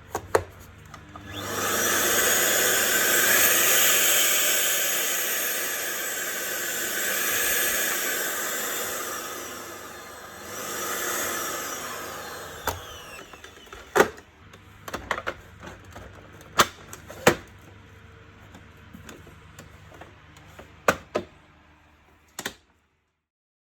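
Electrolux UltraOne vacuum cleaner motor starting about a second in and running loudly, swelling and easing, then dying away. Several sharp clicks and knocks follow.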